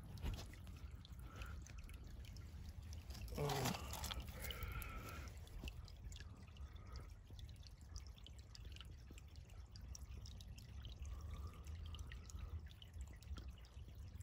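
Shallow creek water trickling faintly over gravel, under a steady low rumble, with one brief louder sound about three and a half seconds in.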